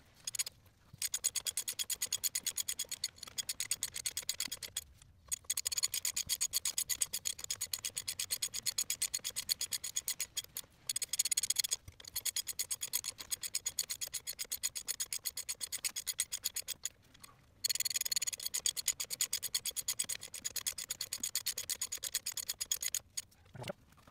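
Hand ratchet clicking rapidly in long runs as it spins nuts down onto the studs of a truck wheel hub, with two short breaks, about five seconds in and about seventeen seconds in.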